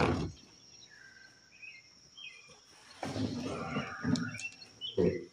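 Small birds chirping in a quiet stretch. Then clattering and scraping as a push mower is shifted about on a wooden workbench, with a sharp thump near the end.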